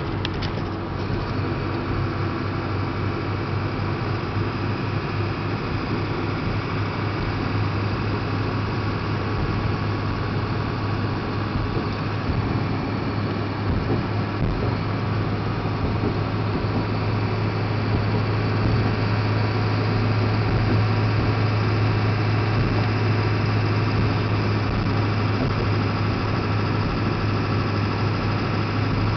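A truck's 7.3-litre diesel engine running while driving, a steady low drone that gets a little louder about two-thirds of the way through.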